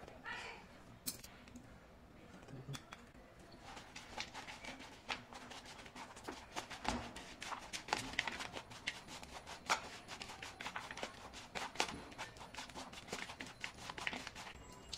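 Metal spoon stirring and scraping a dry mix of chopped nuts, candied fruit and coconut around a bowl: rapid, irregular clicks and scrapes that start about four seconds in.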